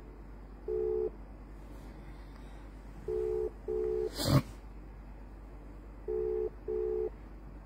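Telephone ringback tone heard through a phone's speaker: an outgoing call ringing, a low double beep repeated about every three seconds. A sharp knock about four seconds in is the loudest sound.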